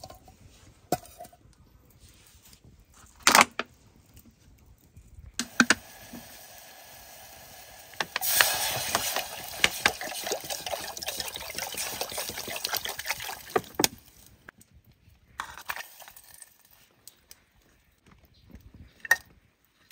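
Water poured into a cooking pot, with a steady pour lasting about six seconds mid-way and a shorter pour after it, amid a few sharp knocks of pot and utensils.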